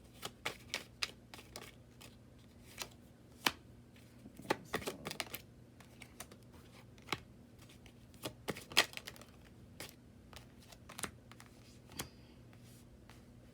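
Tarot cards being shuffled and handled: irregular light snaps and flicks, with a short flurry about four and a half seconds in and a sharper snap near nine seconds, over a faint steady hum.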